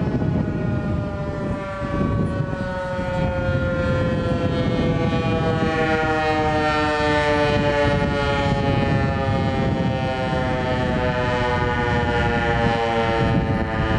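Outdoor tornado warning siren sounding a steady wail, its pitch sliding slowly lower, over a low rumble.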